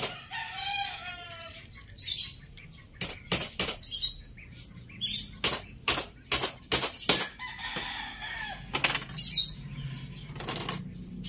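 Hammer nailing split bamboo slats onto a wooden frame: a run of irregular sharp knocks, often two or three in quick succession.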